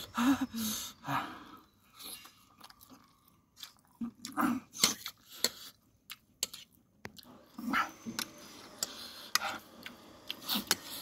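Close-miked chewing of spicy instant noodles and fried egg, with wet mouth clicks and smacks coming in irregular bursts.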